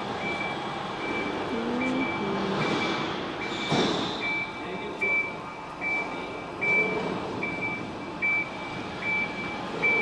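Motion warning beeper of an OmniTurtle omnidirectional mecanum-wheel platform, short single-pitch beeps repeating about once every 0.8 s while the platform turns, over a steady machine noise. A brief clatter about four seconds in.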